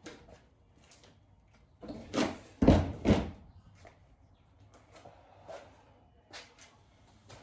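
A handful of knocks and clunks, the loudest two close together about three seconds in, with light clicks scattered before and after: tools and parts being handled while unbolting the front bar in a car's engine bay.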